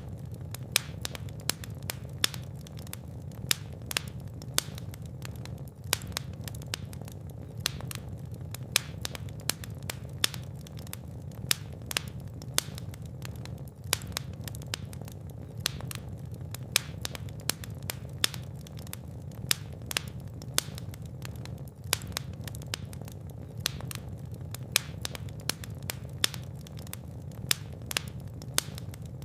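Wood fire burning in a fireplace: a steady low rumble of flames with frequent irregular crackles and sharp pops, some much louder than others.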